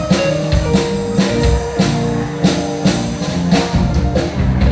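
A live band playing: a drum kit keeping a steady beat under bass, guitar and keyboard.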